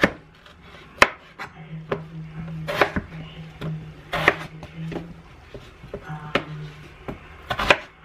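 Chef's knife slicing through raw potatoes on a wooden cutting board, the blade knocking on the board at uneven intervals.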